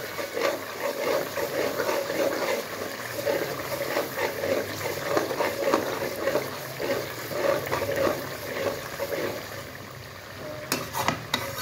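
Metal spatula stirring and scraping boneless chicken karahi through its thick, bubbling masala gravy in a karahi pan, with wet squelching and crackling as the dish is fried down. A few sharp knocks come near the end.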